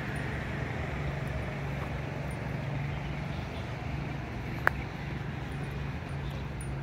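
Distant road traffic: a steady low rumble, with one sharp click about four and a half seconds in.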